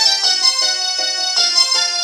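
Audiovox CDM-8900 cell phone playing a polyphonic ringtone: a quick, even run of synthesized keyboard-like notes, about four a second, with no bass.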